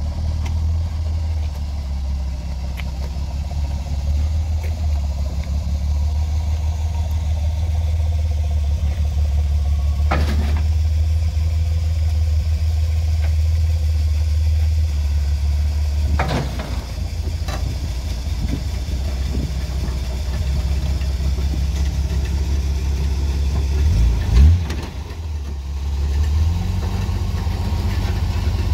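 Volvo C304 (TGB13) truck engine running steadily while its hookloader arm hooks and drags a flatbed up onto the truck. There are two sharp metallic clanks partway through and a brief heavy thump near the end.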